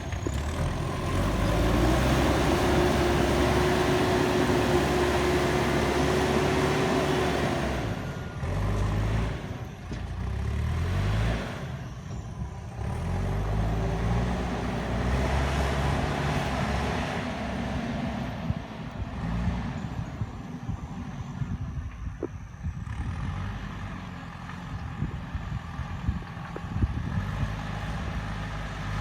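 JCB backhoe loader's diesel engine working under load, its revs rising and falling repeatedly. A steady whine sounds over the engine for several seconds starting about two seconds in.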